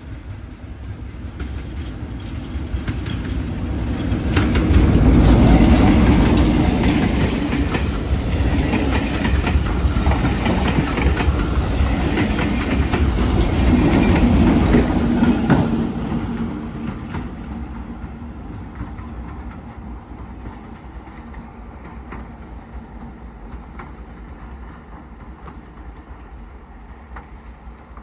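Diesel train passing close by: the engine and the wheels clicking over the rail joints build up, are loudest from about four seconds in until around fifteen seconds, then fade away steadily as it goes off down the line.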